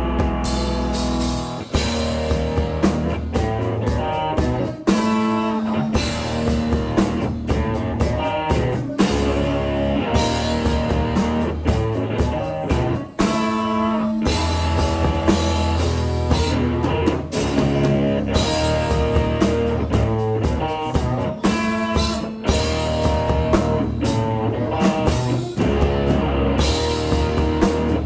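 Rock band playing an instrumental passage live: electric guitar over a full drum kit, with frequent drum and cymbal hits.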